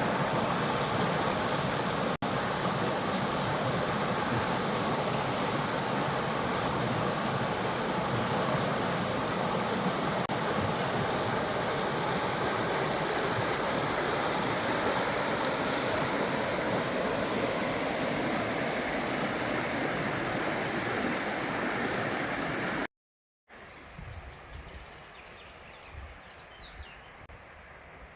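Mountain stream rushing over a small waterfall: a loud, steady wash of water. About 23 s in it cuts off abruptly. After a brief silence, a much quieter forest background follows, with a few faint bird chirps near the end.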